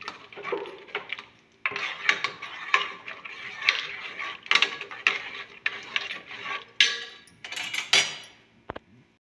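A metal ladle scraping and clinking against the sides of an aluminium cooking pot as thick spinach is stirred. The strokes are irregular and begin about a second and a half in.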